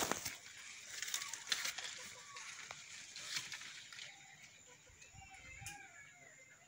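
Faint rustling and crackling handling noises of palm fronds and fibre rope in a kithul palm's crown, with a knock at the start. After about four seconds, faint wavering bird calls.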